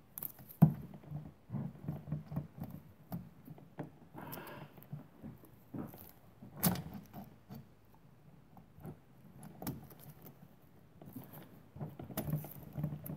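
Irregular clicks, knocks and rubbing of plastic and metal parts as a new carburetor is worked by hand onto the rubber intake boot of a Poulan Pro 42cc chainsaw. There is a sharp click about half a second in, a brief scrape about four seconds in, and another click midway.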